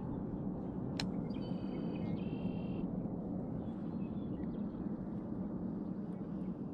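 Steady low outdoor background noise with a bird calling about a second and a half in: one buzzy call in two parts, lasting about a second and a half. A single sharp click comes just before the call.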